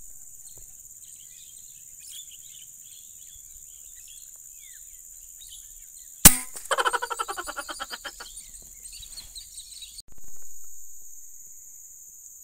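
A single sharp crack of a PCP air rifle firing about six seconds in. Right after it comes a fast run of pulsing calls that fades over two to three seconds. Behind it all is a steady high insect drone with scattered bird chirps.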